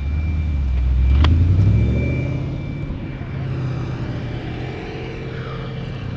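A vehicle engine speeding up, its pitch rising over the first two seconds, then running on steadily and quieter, with a single sharp click about a second in.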